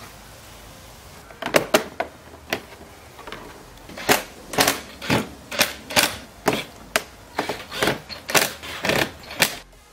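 Sharp clicks and knocks as a moped's plastic side panel is pressed and tapped into place: a few from about a second and a half in, then a steady run of about two a second.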